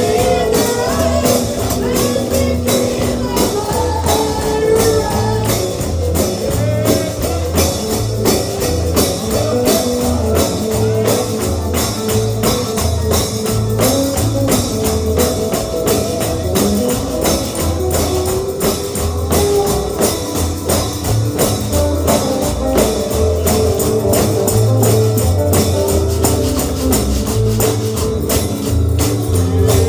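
Bluegrass gospel band music, mostly instrumental, with a tambourine struck in a steady beat over a bass line and a melody.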